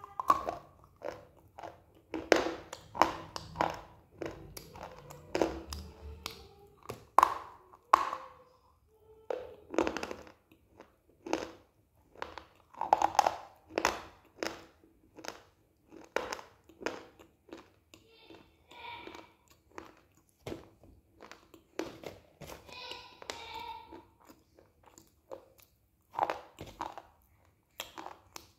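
Close-up crunching as a person bites and chews dry pieces of white clay bar and slate pencil: many sharp crunches at an uneven pace, with a few softer, wetter chewing stretches in between.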